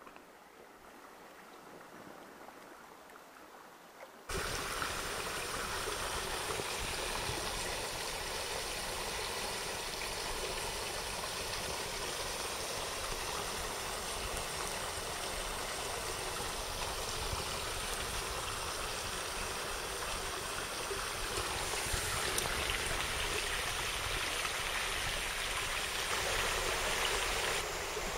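Mountain stream running: a steady wash of flowing water that cuts in abruptly about four seconds in, after a fainter start, and grows slightly louder near the end.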